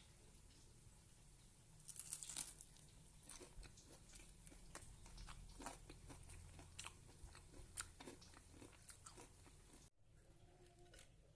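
Faint, irregular crisp crunching and snapping of food being handled, a scatter of sharp crackles that stops abruptly near the end.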